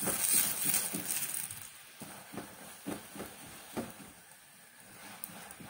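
Cooking oil sizzling in a hot frying pan under chapati; the hiss is strong for about the first second and a half, then dies down. A few soft taps come as fingers press and spread the oil over the chapati.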